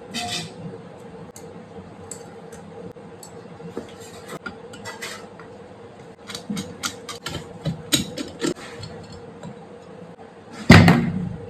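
Scattered metallic clicks and clinks of tools and parts being handled, with a loud knock near the end, over a steady hum.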